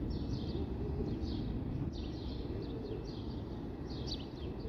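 Birds chirping in quick, short, falling notes, several a second, over a steady low background rumble.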